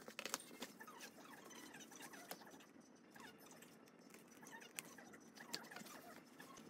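Faint handling sounds of a cardboard gift box and a leather wallet: soft rustling and small scrapes, with a few light clicks scattered through.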